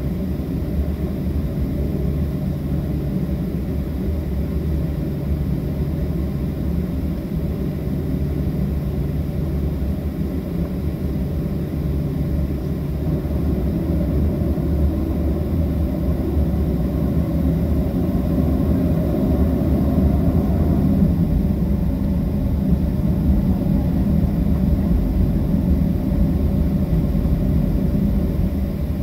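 Cabin noise of a Boeing 737-700 taxiing: a steady low rumble from its CFM56 jet engines at taxi power and the rolling gear. It grows slightly louder about halfway through.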